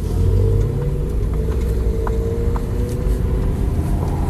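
Low, steady rumble inside a Tesla Model S Plaid's cabin as the car rolls slowly at walking pace, with a faint whine rising slightly as it gathers speed.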